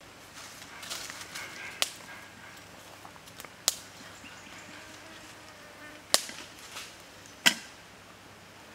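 Four sharp cracks of dry wood, spaced about two seconds apart, the last two the loudest, over a quiet forest background.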